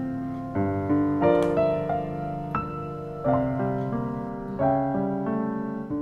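Background piano music: chords and notes struck every second or so, each left to ring.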